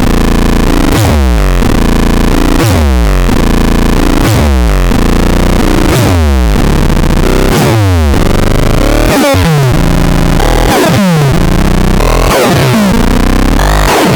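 Loud, heavily distorted electronic synthesizer sound with steep downward pitch sweeps repeating about every three quarters of a second, growing busier in the second half.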